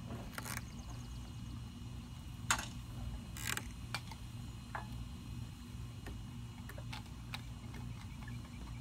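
Light metal clinks and taps of swing chains and hanger hooks being handled, scattered irregularly, over a low steady hum.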